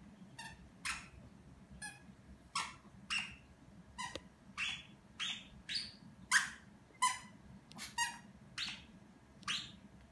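A Yorkshire terrier vocalising with a plush toy in its mouth: a string of about fifteen short falling cries, one or two a second. These are its 'gau-gau' noises of demand.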